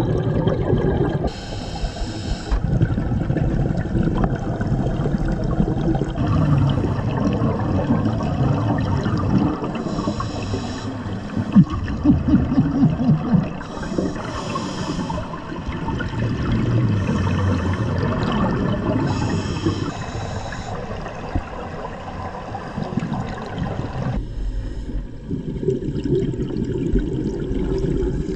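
Underwater sound of scuba divers breathing through regulators: a continuous low bubbling and gurgling from exhaled bubbles, with a short hiss about every four to five seconds. Near the end the sound changes to a steadier low rumble.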